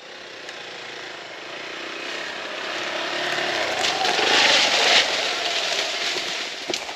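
Hero XPulse 200 single-cylinder motorcycle engine running under throttle as the bike rides through undergrowth. It grows louder as the bike approaches, is closest about four to five seconds in, then fades as it rides away.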